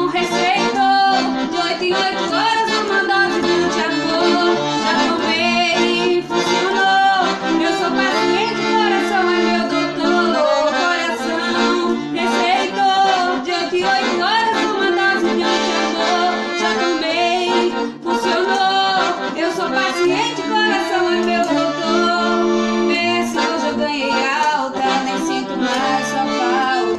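Accordion playing a lively tune, with sustained bass notes under a moving melody, and a voice singing along.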